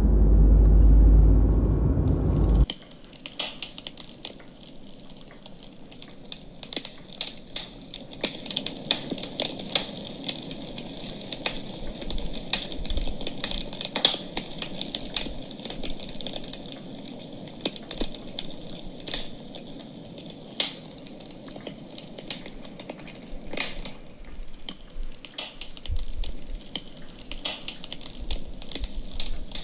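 Wood campfire crackling, with irregular sharp snaps over a soft hiss. For about the first three seconds a loud low rumble covers it, then cuts off abruptly.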